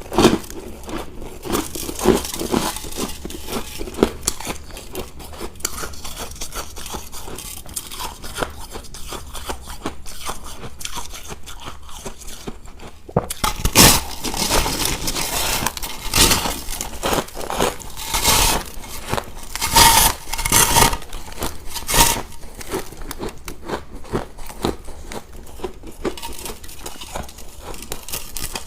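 Ice being bitten and chewed close to the microphone: irregular crunching and crackling of ice cubes. There is a louder stretch of sharp cracks and crunches from about halfway through until about three quarters of the way in.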